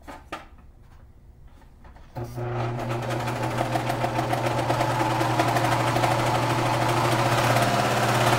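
Janome serger (overlocker) with its needles removed, starting up about two seconds in and then running steadily at speed, its knives trimming the fabric edge without stitching. A couple of light clicks come just before it starts.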